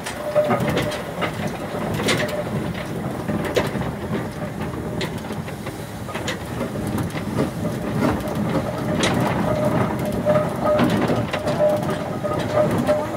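1912 McLaren steam road locomotive under way, heard from the footplate: a steady rumble with irregular clanks and knocks from its moving parts, and a faint steady note in the second half.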